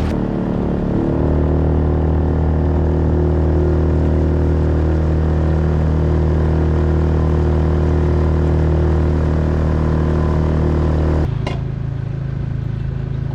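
Small boat's motor running steadily under way. Its note steps up about a second in as it speeds up, then drops sharply near the end as it is throttled back, with a brief knock just after.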